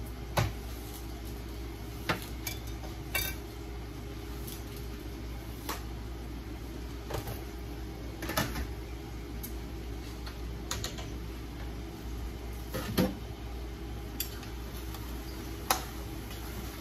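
Cookware being handled: a knife, a pot lid and a stirring spoon on a frying pan give scattered sharp clinks and knocks, around ten in all, the loudest near the start and about two-thirds of the way through. A steady low hum runs under them.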